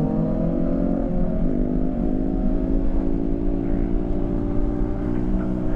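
Motorcycle engine accelerating, its pitch rising over the first second, then running at steady high revs with a few brief dips, over road and wind noise.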